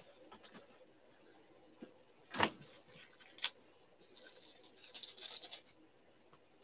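Faint handling of trading cards on a tabletop: a sharp knock about two and a half seconds in, a smaller click a second later, then about a second and a half of rustling as cards slide and shuffle.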